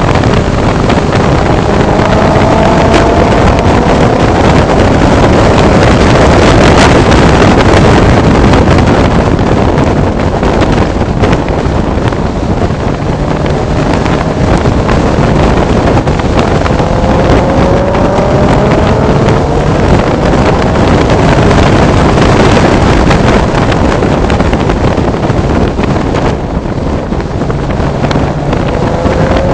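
Nissan 300ZX twin-turbo V6 running hard on a race track, heard from inside the car, its note climbing under acceleration about a second in, again around the middle and near the end. Heavy wind noise buffets the microphone throughout.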